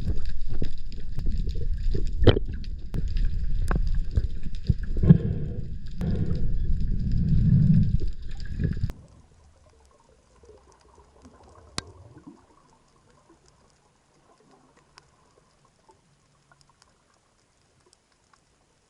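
Water rushing and sloshing against the camera's microphone, with scattered knocks and clicks. About nine seconds in it cuts off abruptly to a much quieter stretch, with only faint scattered clicks.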